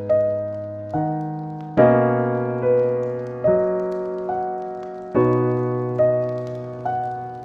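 Slow, calm solo piano: a chord or melody note is struck about once a second and left to ring and fade before the next.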